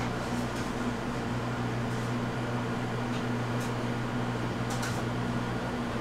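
Steady electrical machine hum, like a fan or cooling unit running, with a few faint light ticks from the clear plastic box being handled.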